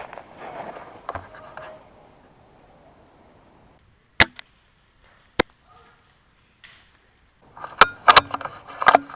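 Airsoft gunfire: two sharp single shots a little over a second apart, then a quick cluster of clicks and knocks near the end.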